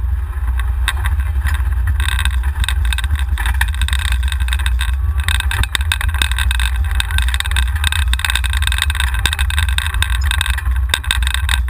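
Golf cart driving over asphalt, heard from a camera mounted on it: a steady low wind rumble on the microphone with dense rattling and road noise, growing louder about two seconds in.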